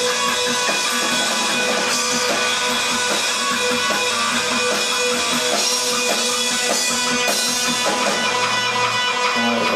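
Live rock band playing an instrumental passage: strummed electric guitars over drums, held at a steady loudness.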